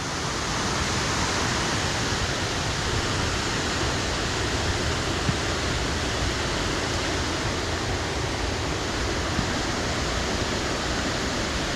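Fast-flowing river running high and fast after rain: a steady rush of water.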